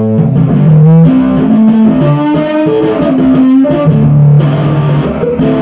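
1959 Airline Town and Country electric guitar played through an amplifier: a melodic line of sustained single notes and short chords.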